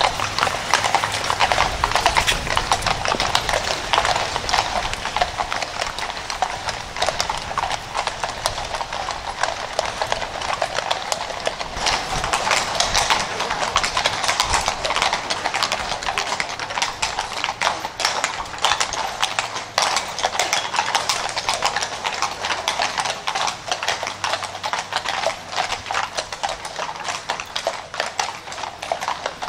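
Many horses' hooves clip-clopping in a dense, continuous patter: the team of a horse-drawn carriage arriving.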